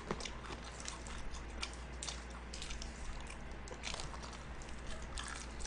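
A person biting and chewing fried chicken close to the microphone, with irregular short wet mouth clicks.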